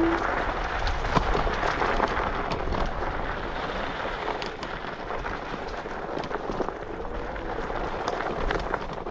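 Wind rushing over the microphone while riding an electric scooter, with many small knocks and rattles and a faint steady whine.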